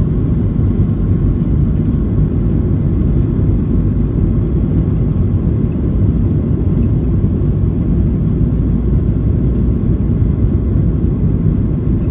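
Boeing 737-800's CFM56-7B jet engines at takeoff thrust, heard from inside the cabin as a loud, steady low rumble.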